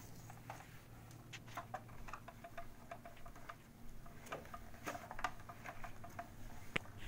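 Scattered faint clicks and taps of a plastic VR headset and its straps being handled and pulled on over the head, with a steady low hum underneath.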